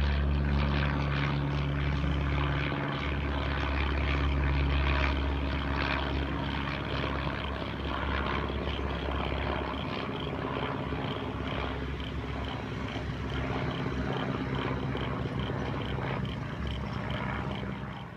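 Vintage single-engine propeller light aircraft flying overhead, its piston engine droning steadily. It is loudest in the first half, then fades as the plane draws away.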